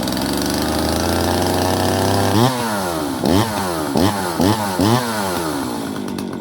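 Jonsered 525 two-stroke chainsaw just started and running, its engine speed climbing slowly, then revved with five quick throttle blips, each a sharp rise and fall in pitch, before settling to a steadier run.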